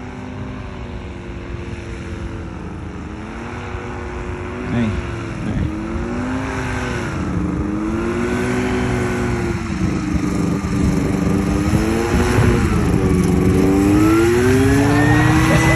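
Paramotor trike's engine and propeller running, its pitch wavering up and down with the throttle and getting louder as it comes in and lands, rising in pitch near the end.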